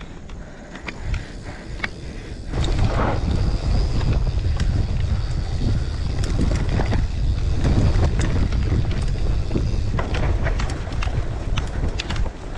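Mountain bike being ridden over a rough dirt trail. Wind rumbles on the action camera's microphone, much louder from about two and a half seconds in, and the bike clicks and rattles over the bumps.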